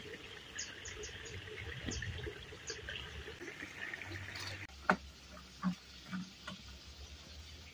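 Insects chirring over faintly running stream water, with a few high ticks. About four and a half seconds in the sound changes abruptly to a few sharp wet slaps and splashes, the first the loudest, from a heap of catfish flapping in shallow water.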